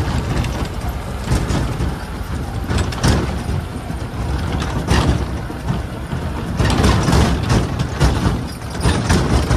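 T-40AM tractor's air-cooled diesel engine running as the tractor drives over rough ground, with a pulsing low rumble and repeated knocks and rattles from the machine.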